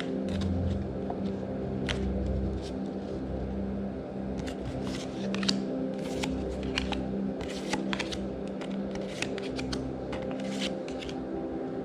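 Magic: The Gathering trading cards being handled and flicked through, a run of small snaps and clicks of card stock that comes much more often from about four seconds in.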